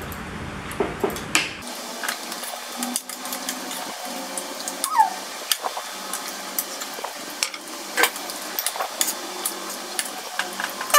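Knives and forks clicking and scraping on plates as grilled chicken is cut, irregular sharp clinks throughout, with a short squeak about five seconds in.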